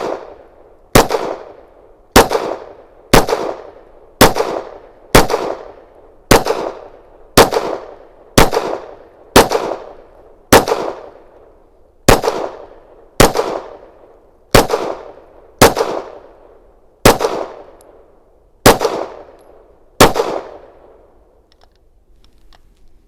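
Canik METE SFT 9mm pistol firing a slow, steady string of about seventeen shots, roughly one a second, each shot trailing off in a short echo. The gaps widen a little toward the end, and the string stops about three seconds before the end.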